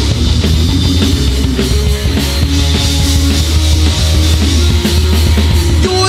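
Live rock band playing without vocals: electric guitars, bass guitar and drum kit, taken straight from the mixing desk in mono.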